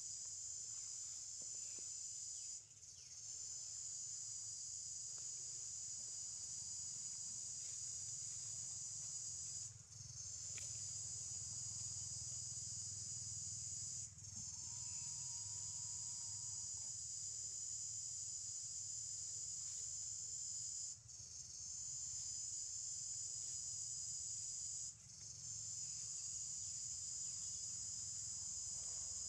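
Steady high-pitched drone of insects, breaking off for a moment about five times.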